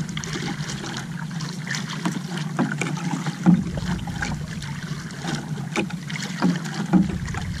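Water lapping and slapping against the hull and outrigger of a small outrigger canoe on open sea, with scattered short knocks at irregular times over a steady wash.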